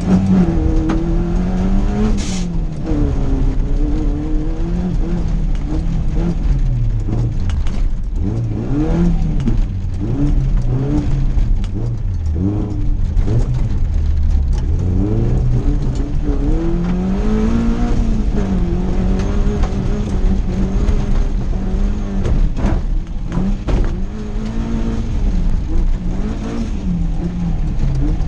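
Onboard sound of a competition car's engine driven hard on a gravel course, its revs climbing and dropping again every few seconds, over a steady low rumble from the car and tyres on gravel. There is a brief sharp noise about two seconds in.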